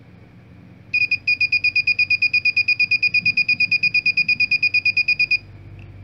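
Small electronic buzzer driven by a 555 timer circuit, beeping rapidly with a high-pitched tone at about eight beeps a second. It starts about a second in and cuts off near the end.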